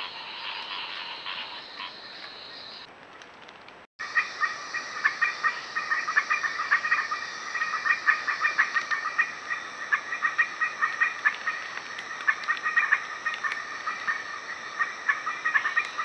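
Night chorus of frogs. A quieter steady chorus cuts off abruptly about four seconds in, and a louder, dense chorus of rapid overlapping pulsed croaks begins straight after.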